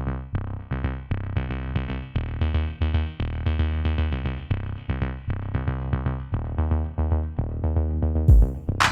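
Electronic background music: synthesizer chords over a heavy bass line and a steady drum-machine beat, with a louder, sharper hit near the end.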